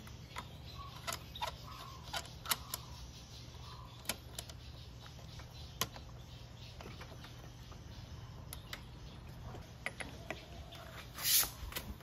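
Sparse, irregular light clicks of a Vespa LX rear drum brake's adjusting nut being twisted clockwise by hand on the brake rod to tighten the brake, with a louder clatter near the end.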